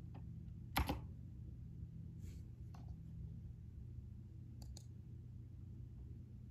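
A few scattered clicks at a computer keyboard and mouse: one sharp click about a second in, then fainter ones, including a quick pair of clicks later on, over a steady low hum.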